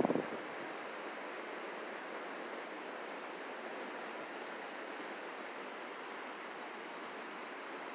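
Steady wind, an even hiss with no gusts or breaks.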